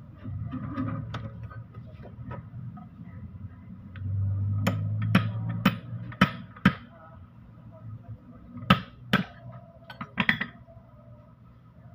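Hammer striking metal gearbox parts: a run of five sharp blows about half a second apart, then a few more after a short pause.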